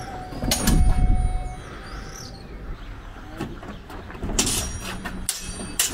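Heavy footsteps thudding and rumbling on the planks of a wooden footbridge, with scattered sharp knocks and clacks from the fighters' swords and gear. A louder cluster of knocks comes about four and a half seconds in.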